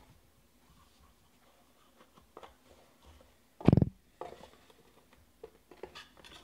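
A cardboard trading-card box and its foam insert being handled, with light rustles and clicks. There is one dull thump a little past halfway as something is set down on the table.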